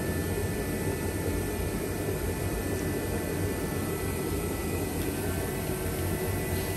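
Steady low droning background noise with a faint, steady high whine, as from a running fan or motor; no clear single events.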